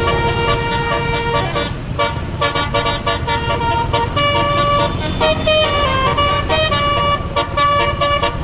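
A tour bus's telolet basuri multi-tone horn playing a melody: a run of held notes changing in pitch, with a short break about two seconds in, over a steady low rumble.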